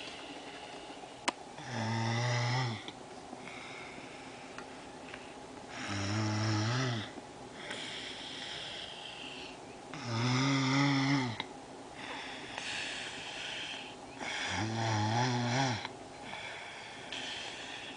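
A sleeping person snoring: four loud snores about four seconds apart, each lasting about a second, with quieter breathy exhales in between.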